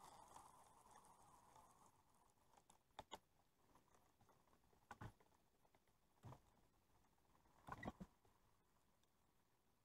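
Near silence, with a few faint knocks and clicks scattered through it: about three, five and six seconds in, and a quick cluster of them near eight seconds.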